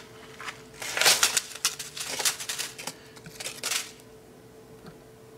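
Crumpled white paper being handled, rustling and crackling in a run of short crinkles from about a second in until about four seconds in.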